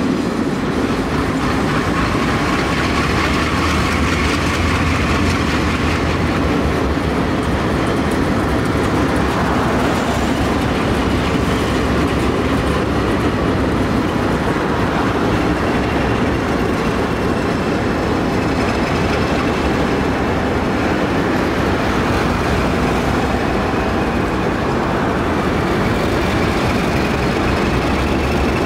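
Several Alco diesel locomotives working past in a lashup, their engines running under a steady rumble of wheels on rail.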